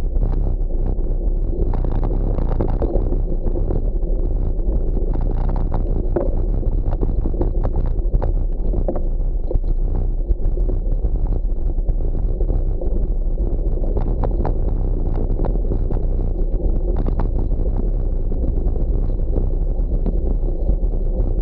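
Wind rushing over the microphone of a camera riding on a gravel bike, with frequent short knocks and rattles as the bike jolts over the rough grassy doubletrack.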